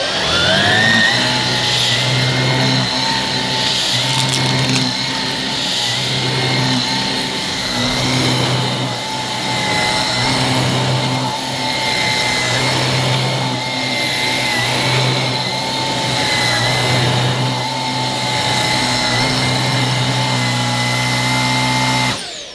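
Miele Duoflex HX1 cordless stick vacuum switched on, its motor whine rising to speed, then running steadily with the motorised brush roll turning on plush carpet, a lower hum coming and going every couple of seconds. Pushed along the carpet pile, the brush roll keeps running without stalling. The motor cuts off shortly before the end.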